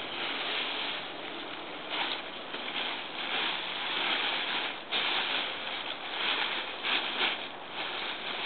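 Crinkling and rustling of a Dyneema (cuben fiber) tent's fabric being folded and rolled up by hand, loud and uneven, with sharper crackles as it is pressed together.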